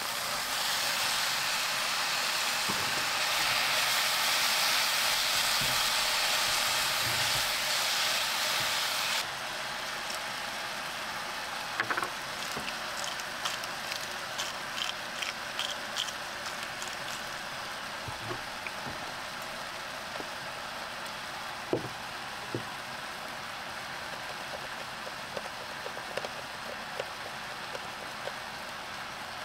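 Sliced beef with mushrooms sizzling in a frying pan on a portable gas stove, loud at first after the meat goes in, then dropping suddenly about nine seconds in to a quieter, steady frying. Light rattling ticks of seasoning shaken from a shaker over the pan come through in the middle, with a few scattered clicks.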